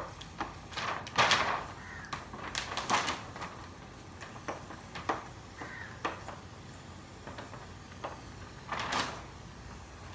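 Handheld pump-pressure spray bottle misting water onto a car's side panel in several short hissing bursts, spaced irregularly, with light clicks and rustling between them.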